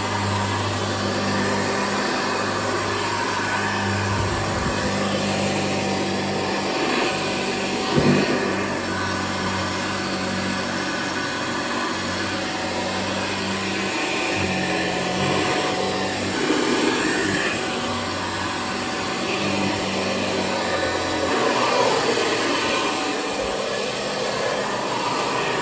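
Hoover Citation Model 64 upright vacuum cleaner running steadily, with a brief knock about eight seconds in.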